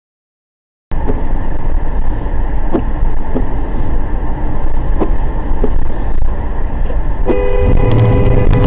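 Starting about a second in, steady road and engine noise of a moving car as picked up by a dashcam inside it; about seven seconds in, a car horn sounds and is held.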